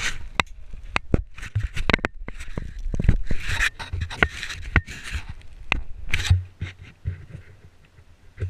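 Caving gear and oversuit scraping and knocking against rock close to the microphone as a caver squeezes through a tight rift: a run of irregular sharp clicks and rasping scrapes with dull thuds.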